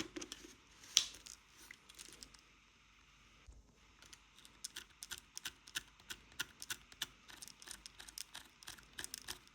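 A series of light, sharp clicks from handling a camera fitted with a chipped manual-focus lens: one louder click about a second in, then a run of quick clicks, about two or three a second, in the second half.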